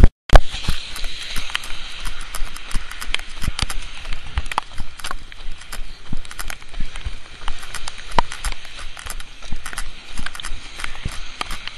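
A phone camera jostled in a runner's hand, giving many irregular knocks and rubbing thuds over a steady hiss of rain and wind, with a brief cutout of all sound right at the start.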